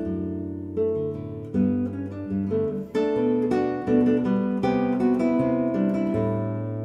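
Nylon-string classical guitar played solo fingerstyle: a plucked melody over bass notes and chords, growing fuller and louder about three seconds in.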